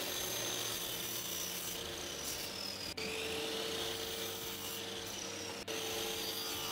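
Stanley miter saw running and cutting through a wooden board, a steady motor whine over rasping cutting noise. The sound drops out for an instant twice.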